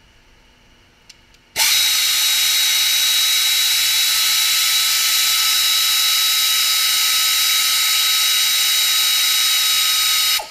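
Power ratchet running continuously, spinning out a gearbox bell-housing bolt. It is a steady whine with a hiss that starts abruptly about a second and a half in, holds for about nine seconds and cuts off just before the end.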